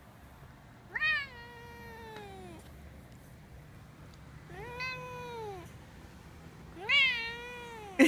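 A tabby-and-white domestic cat giving three long, drawn-out complaining meows, each rising then sliding down in pitch, as someone threatens to sit on him to take his spot. A sudden loud sound comes right at the very end.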